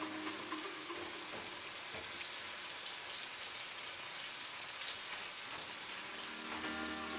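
Vinegar sauce with sliced vegetables simmering in a frying pan over high heat: a steady fine crackle and sizzle.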